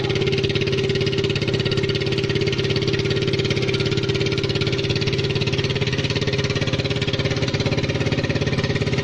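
A 125cc ATV engine idling steadily, with a fast, even pulse.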